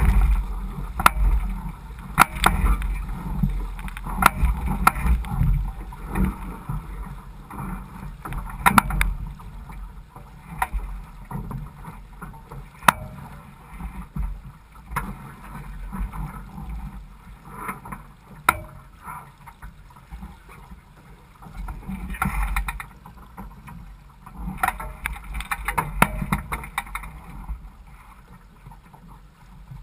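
Water swishing and lapping along a Laser 4000 sailing dinghy's hull as it moves slowly in light wind, swelling louder a few times, over a low wind rumble on the microphone. Scattered sharp clicks and knocks sound throughout.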